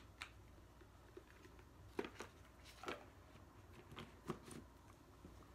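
Near-quiet room with several soft, scattered taps and rubs from handling a cardboard phone box and a plastic iced-drink cup with a straw.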